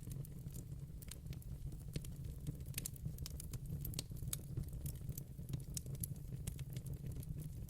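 Campfire crackling: irregular sharp pops and snaps scattered throughout over a steady low rumble of burning.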